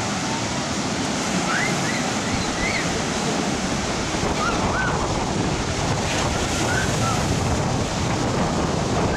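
Rough Black Sea surf breaking and washing on the beach in a storm, with wind buffeting the microphone. A few faint, short, high calls sound over it.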